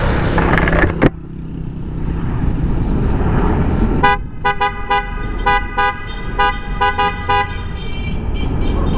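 Motorcycle horns tooted in a rapid string of short beeps inside a road tunnel, starting about four seconds in, over running engine and road noise.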